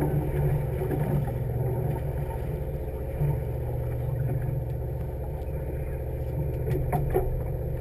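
Party fishing boat's engine idling, a steady low drone with an even throb. A few light clicks near the end.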